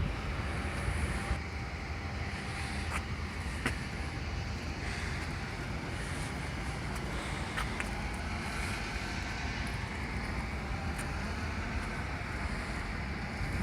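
Steady outdoor background noise, like distant road traffic, with a few faint ticks.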